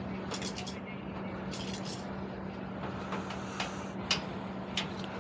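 A steady low hum with a scattering of light clicks and knocks.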